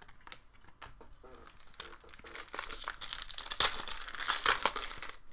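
Foil wrapper of a Panini Prizm basketball card pack being torn open and crinkled by hand. The crackling builds and is loudest in the second half.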